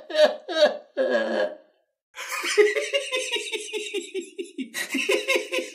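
Laughter in rhythmic bursts, each falling in pitch, breaking off briefly about a second and a half in, then starting again as faster, steadier giggling.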